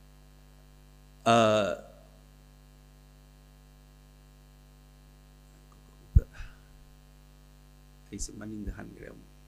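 Steady electrical mains hum running through the lectern microphone's sound system. A short voice sound comes about a second in, a sharp thump about six seconds in, and a few spoken syllables near the end.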